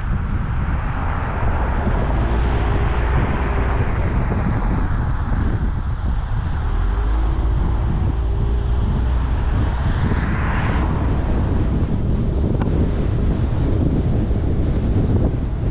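A car driving along a road: steady low road rumble and wind noise on the microphone, with a faint engine hum. About ten seconds in, a brief hiss swells and fades.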